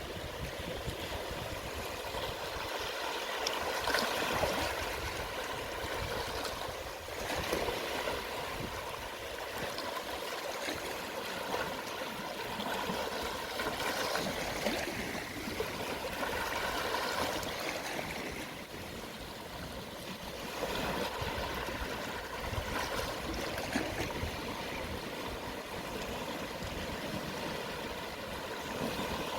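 Gentle sea waves at low tide, small waves washing and trickling over the shore in a continuous wash, swelling softly every few seconds.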